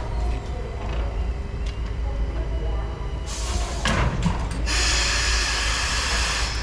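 Steam locomotive venting steam: a short hiss about three seconds in, then a longer loud hiss of about two seconds that cuts off sharply, over a steady low rumble.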